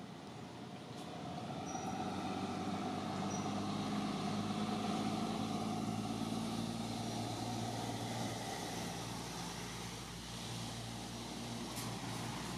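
Motor vehicle engine running steadily, growing louder over the first few seconds, holding, then easing a little near the end. Two brief high chirps come about two and three seconds in.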